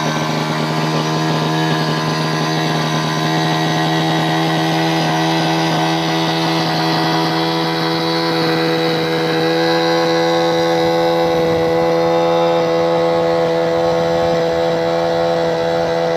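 Yamaha outboard motor running steadily at high speed, pushing the boat along at full throttle. It is on a test run just after a service and is running flat-out again.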